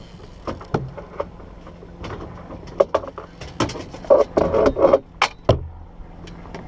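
Scattered knocks and clicks, with a denser rattle about four to five seconds in, as a fishing landing net is pulled out and handled on a boat's deck.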